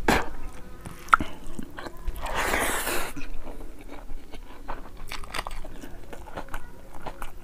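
Close-miked eating sounds of boiled fish head and rice eaten by hand: chewing and many short, wet clicks, with a breathy hiss about two seconds in that lasts about a second.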